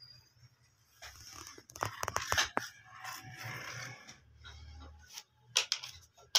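Leather and rubber sandal-sole pieces scraping, crunching and rustling as they are handled and pressed down on a stone work slab, with a cluster of sharp clicks about two seconds in and a brief sharp click at the end.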